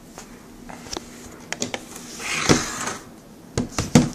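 Handling noises from a Dell Inspiron 15R laptop being moved and turned over on a wooden table: a few light clicks, a short rubbing sound about halfway through, then a quick cluster of sharper knocks near the end.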